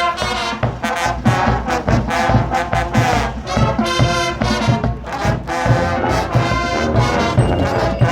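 High school marching band playing loudly, its brass section (trombones and trumpets) sounding full chords with repeated sharp accents over low drum hits.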